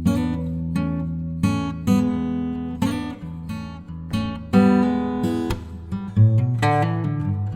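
Background music: acoustic guitar, plucked and strummed chords.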